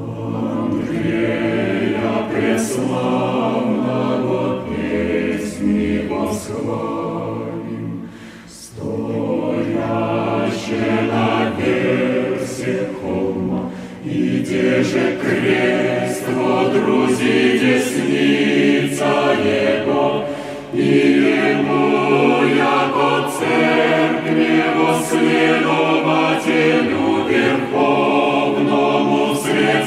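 Choir singing an Orthodox Church hymn a cappella in sustained, chant-like phrases, with a brief breath between phrases about eight seconds in.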